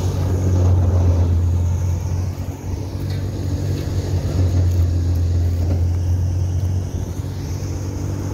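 Massey Ferguson 385 tractor's diesel engine running steadily under load, driving a wheat thresher, with a constant low drone.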